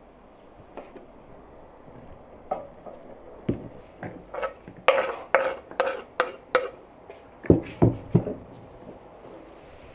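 Kitchen utensils clinking and knocking against dishes, a run of sharp strikes about two a second followed by a few heavier thumps, while salad ingredients are handled.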